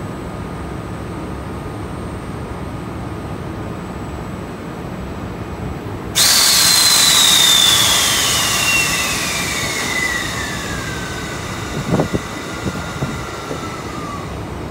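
Stationary EF65 electric locomotive humming steadily, then about halfway through a sudden loud hiss of compressed air blowing off from its air system, with a whistling tone that slides steadily down in pitch as the hiss slowly dies away. A few soft thumps come near the end.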